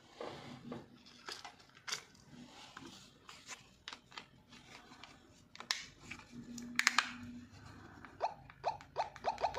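Plastic clicks and snaps as the Nokia 110 feature phone's housing is handled and fitted back on. Near the end a quick regular run of short high chirps starts, about five a second.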